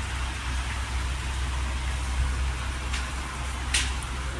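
Steady low background hum and rumble under an even hiss, with a few short scratchy sounds in the last second and a half.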